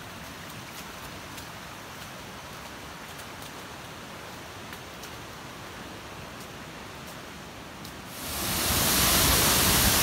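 A steady hiss of distant rushing water, then about eight seconds in a much louder, dense rush of a large waterfall pouring into its plunge pool.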